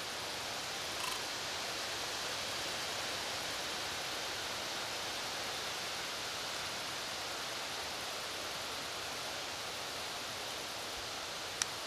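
Steady, even outdoor background hiss with no distinct source, a faint tick about a second in and one sharp click near the end.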